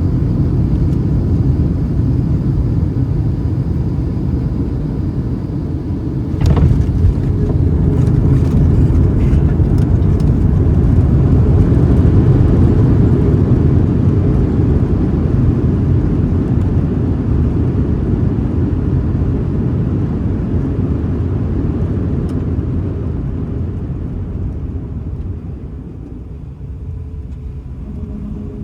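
Boeing 737-800 cabin rumble from over the wing: a sudden knock about six and a half seconds in, then a louder rumble that builds and slowly dies away over the final several seconds, as on touchdown and the slowing landing rollout with its CFM56 engines in reverse thrust.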